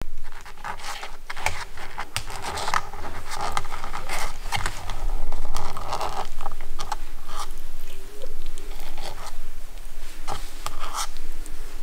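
A kitten's claws and teeth scratching and raking at a fuzzy plush toy, close up: an irregular run of short, scratchy rasps and scrapes.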